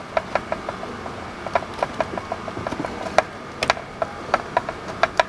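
Silicone hose being worked by hand onto the fittings of an air oil separator: irregular, short clicks and creaks of the hose and nearby plastic parts, about four a second.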